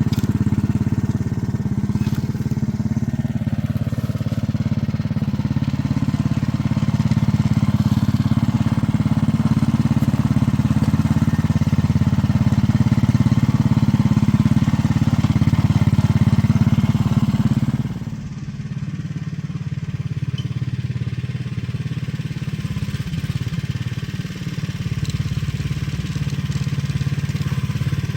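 Small engine of a rideable backyard railway vehicle running steadily under way, hauling a piece of rail. About 18 seconds in it suddenly gets quieter and duller, then runs on at the lower level.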